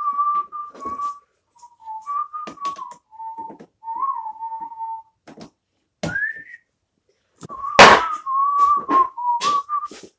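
A person whistling a tune in short phrases, the notes wavering up and down with one rising slide about six seconds in. Scattered knocks and clicks come between the phrases, and a loud thump comes just before eight seconds in.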